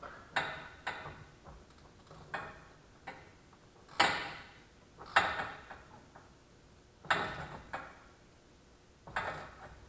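Socket ratchet clicking in nine short, irregular strokes, the loudest about four and five seconds in, as a nut is tightened down by hand.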